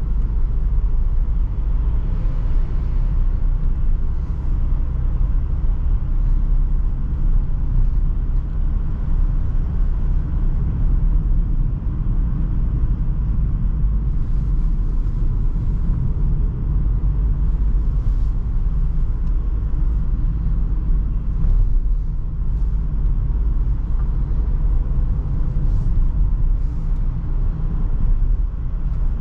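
Renault Trafic van driving, heard from inside the cab: a steady low rumble of engine and road noise, with a few faint light ticks and rattles, mostly in the second half.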